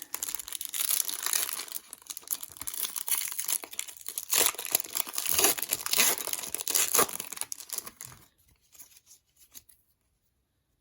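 A 1999-2000 Skybox Dominion basketball card pack's wrapper being torn open and crinkled, with rustling that stops about eight seconds in, leaving only a few faint handling sounds.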